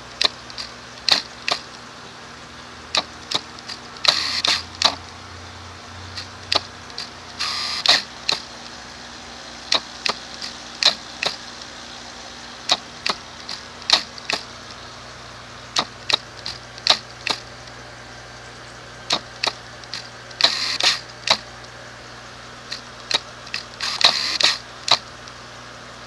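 Irregular sharp clicks from a camera's autofocus lens motor, with a few short whirring stretches, over a steady low hum.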